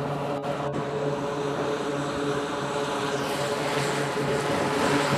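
An E-2 Hawkeye's twin T56 turboprop engines running, propellers turning, as it taxis: a steady propeller drone with a rushing hiss that swells about three seconds in, growing a little louder toward the end.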